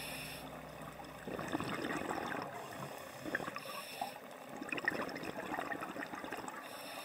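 Underwater sound picked up by a diving camera in its housing: a rushing water hiss with scattered clicks and crackles, swelling about a second in and again around five seconds.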